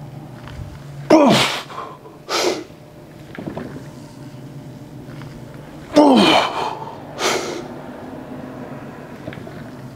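A man grunting hard as he drives up out of a heavy barbell front squat, each grunt falling in pitch and followed about a second later by a sharp, forceful breath. This happens twice, about five seconds apart, once per rep.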